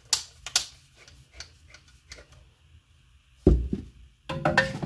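Hand-unscrewing threaded plastic valve fittings: a run of sharp clicks and small ticks, then a heavier knock about three and a half seconds in and a short clatter near the end as the parts are handled and set down on the bench.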